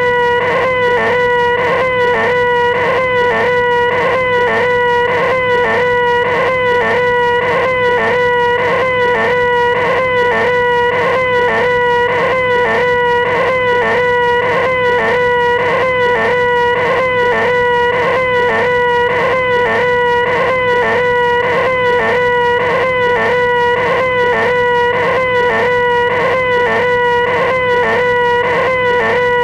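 A man's nasal, high-pitched 'eeeeh' screech, 'the most annoying sound in the world', held on one steady note without a break, with a slight wobble in pitch about twice a second.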